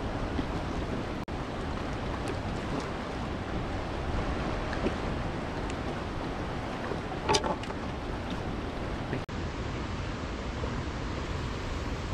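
Steady rushing wind on the microphone over choppy lake water lapping around a canoe, with one brief sharper sound about seven seconds in and two momentary dropouts.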